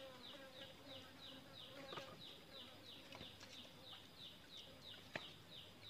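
Faint insect call from the streamside vegetation: short falling chirps repeating evenly, about three a second.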